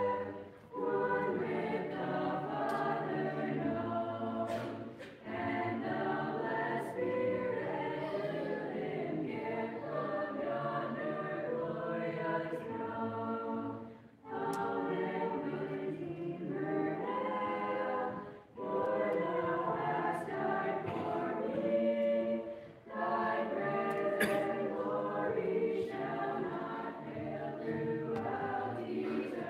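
A mixed choir of boys and girls singing a cappella, phrase by phrase, with a few brief pauses for breath between phrases.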